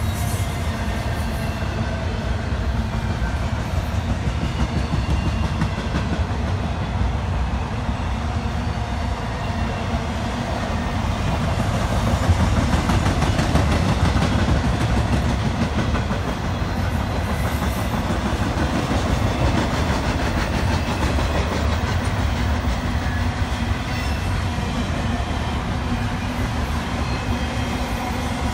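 Double-stack intermodal freight cars rolling past on steel rails: a steady low rumble of wheels on the track with clacking over the rail joints, a little louder around the middle.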